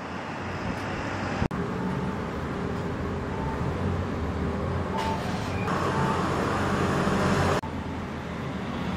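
Steady vehicle and road-traffic noise with a low rumble. It changes abruptly twice, about one and a half seconds in and again late on.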